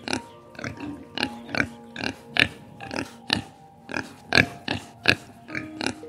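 Young pigs grunting in short, quick grunts, about two or three a second, over soft background music.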